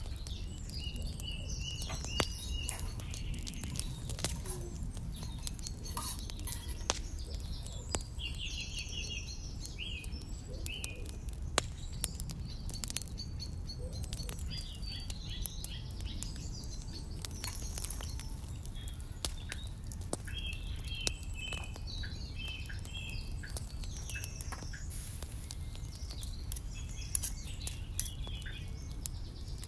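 Small birds chirping in short repeated trills and calls, on and off throughout, over scattered sharp clicks and taps and a steady low rumble.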